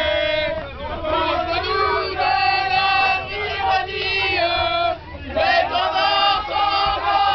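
A group of drunk people singing and chanting loudly together, voices holding and sliding on notes, with a short break about five seconds in. A steady low bus-engine rumble runs underneath.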